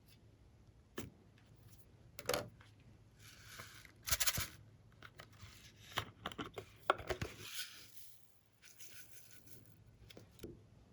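Glossy slime handled close to the microphone: scattered sharp clicks and pops and several short stretches of crackling, tearing noise as it is stretched and pressed.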